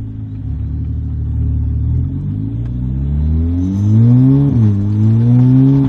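Skoda Octavia 1.8 TSI turbocharged four-cylinder accelerating hard at full throttle. The revs climb, drop sharply at a quick upshift about four and a half seconds in, then climb again. The loud noise under full throttle comes from an exhaust leak, which the owner puts down to a loose clamp joining the downpipe and mid pipe.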